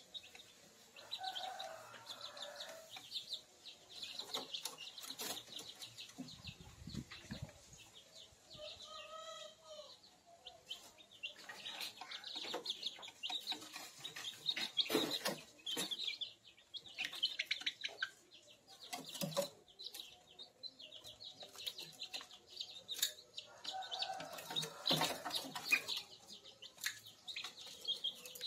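A group of month-old kampung chicks peeping almost without a break in rapid high chirps, with a few lower clucking calls now and then. Sharp taps and brief wing flutters are mixed in.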